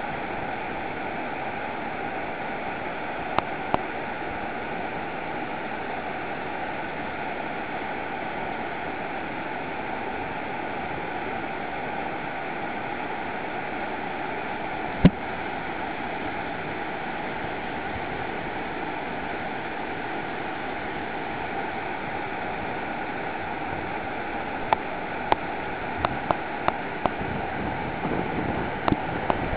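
Steady roar of whitewater rapids rushing over boulders in a steep mountain river. A few sharp clicks cut through it: a couple a few seconds in, a louder one about halfway, and several more close together near the end.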